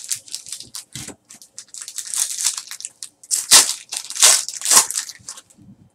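Foil wrapper of a trading card pack being torn open and crinkled by hand, in a run of short, sharp crackling rips that are loudest in the second half.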